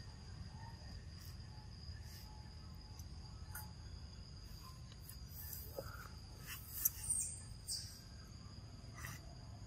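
Insects droning in a steady high-pitched tone, with scattered sharp clicks and a short high squeak about seven seconds in.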